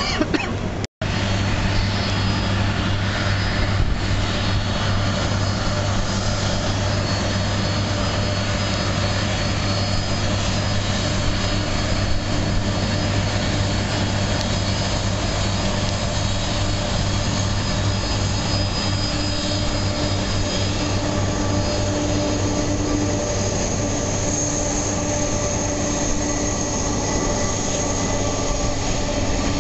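Jet aircraft engines running, a steady rushing noise over a strong low hum, broken by a momentary gap about a second in. A high whine comes in about two-thirds of the way through.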